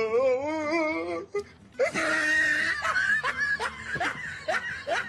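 Hearty laughter, a run of short breathy rising whoops, after a wavering drawn-out voice in the first second or so.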